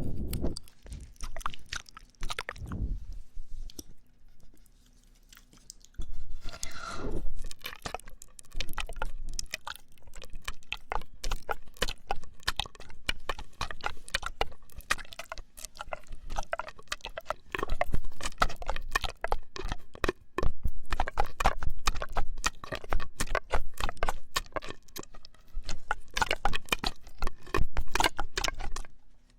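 Close-miked mouth sounds of eating popping candy: dense, rapid crackling and crunching. There is a quieter pause a few seconds in, followed by a short gliding mouth sound.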